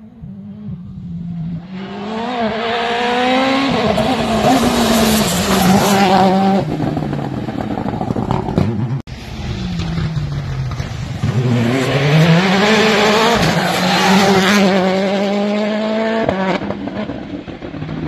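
Citroën C3 WRC rally car's turbocharged 1.6-litre four-cylinder at full throttle on a tarmac test stage. The engine note rises and drops again and again with quick gear changes as the car approaches and passes. After an abrupt cut about halfway, a second run sounds the same.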